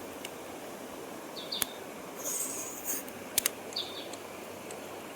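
Outdoor ambience with a bird's short chirp repeating every second or two, a few sharp clicks and a brief high hiss about halfway through.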